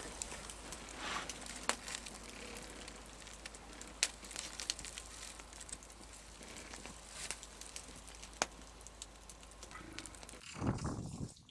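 Campfire crackling: a steady hiss with scattered sharp pops.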